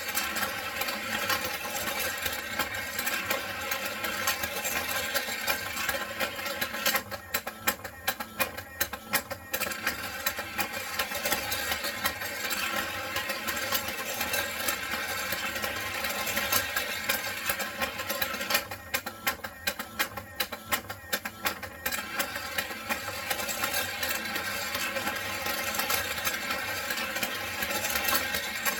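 Puppy race toy track running: its small electric motor whirring steadily under rapid plastic clicking and clattering from the gear-driven lift that carries the puppy figures up to the slide. The sound eases for a couple of seconds twice.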